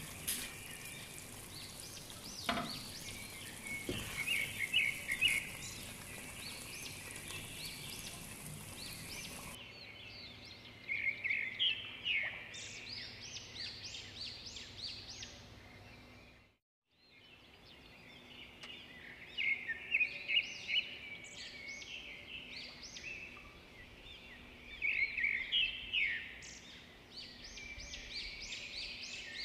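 Small birds chirping and singing in quick runs of high notes over a faint steady hiss, cutting out briefly about halfway through.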